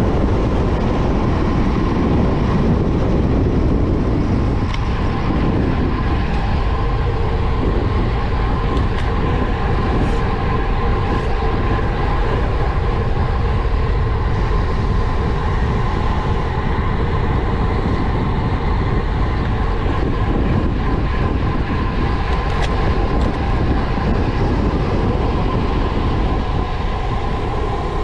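Steady rush of wind on the microphone and road noise from a road bike descending a mountain highway at speed, loud and unbroken.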